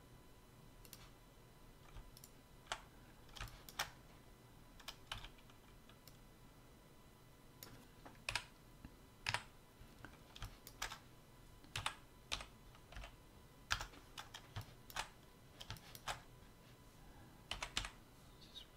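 Computer keyboard keys tapped one at a time in scattered, faint clicks with uneven pauses between them, as single shortcut keys are pressed.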